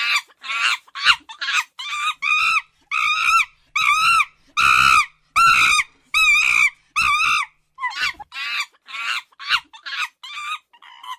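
Monkey screeching: a run of high-pitched calls, each rising and falling in pitch, about two a second. The calls grow longer and louder toward the middle, then turn shorter and quicker near the end.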